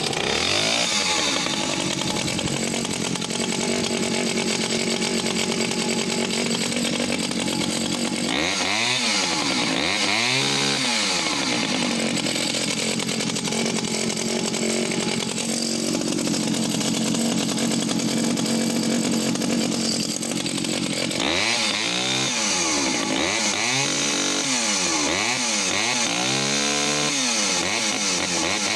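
Pioneer P25 vintage two-stroke chainsaw running from cold, catching right at the start and idling unevenly with a wavering pitch. It is blipped up and down several times, a few quick revs about eight seconds in and a longer run of repeated revs in the last third.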